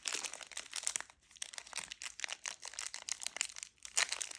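Plastic snack packet of Jammy Dodgers Minis crinkling and crackling as it is handled and opened, a dense run of small crackles with a louder flurry about four seconds in.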